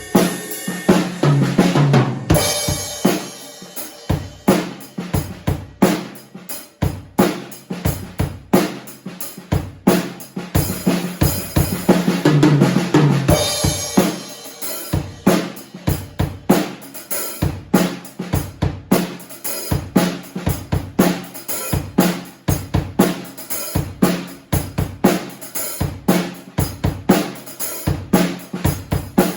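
Acoustic drum kit played as a groove with fills: kick drum, snare with rimshots, and cymbals. It is recorded raw, with no microphones on the drums.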